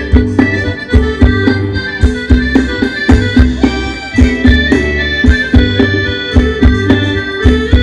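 Live Thai folk dance band playing an instrumental passage, without singing. A sustained, reedy khaen melody plays over a steady drum beat and bass.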